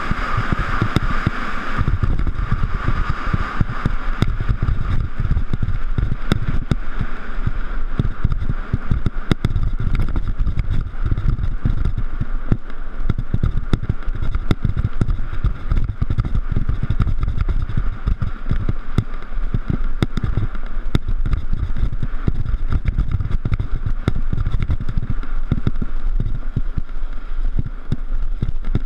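Mountain bike riding over rough trail: wind rumbling on the microphone, with frequent clicks and rattles from the bike over bumps.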